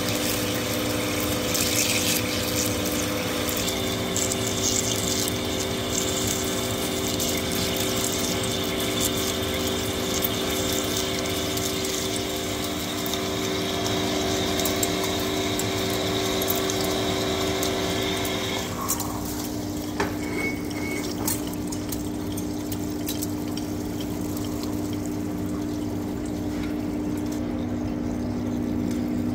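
Hafco centre lathe drilling the end of an induction-hardened chrome steel bar with a 50 mm twist drill under flood coolant: a steady machine hum with high cutting tones and splashing coolant. About two-thirds of the way in the cutting tones stop suddenly, leaving the lathe turning and coolant pouring, with a few clicks.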